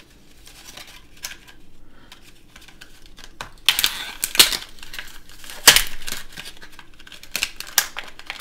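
Toy packaging around a wrestling action figure being torn and crinkled open by hand. Quiet rustling at first, then a run of sharp crackles and snaps from about three and a half seconds in.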